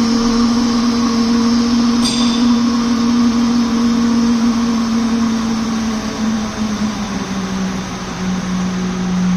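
Vacuum pump of a single-chamber vacuum packaging machine running through its evacuation cycle: a loud, steady hum whose pitch sinks slowly as it runs, with a short click about two seconds in.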